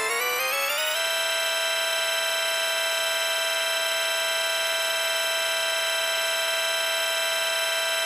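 Pitch-shifted organ-pipe tone, rich in overtones. It climbs in small steps for about the first second, then holds one steady pitch.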